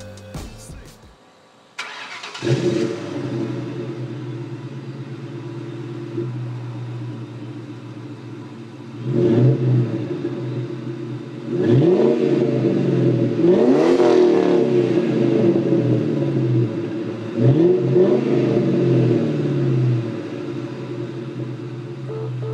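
2002 Ford Mustang GT's 4.6-litre V8 idling through an aftermarket exhaust, coming in about two seconds in. It is revved three times: a short blip around nine seconds, a longer climb peaking near fourteen seconds, and another rev near eighteen seconds, each falling back to idle.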